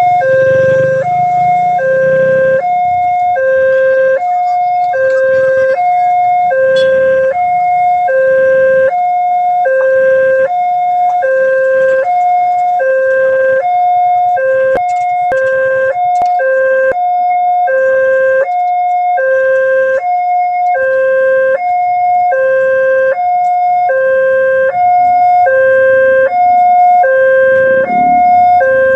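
Railway level-crossing warning alarm sounding: an electronic signal alternating steadily between a lower and a higher tone, about one high-low cycle a second, the warning that a train is approaching the crossing.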